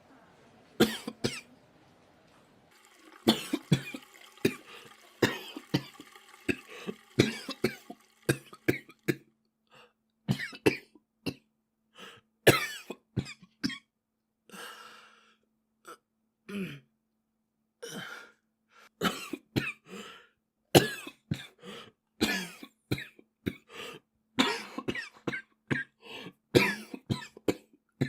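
A boy coughing over and over: runs of short, sharp coughs in quick succession, with a few brief pauses between the bouts.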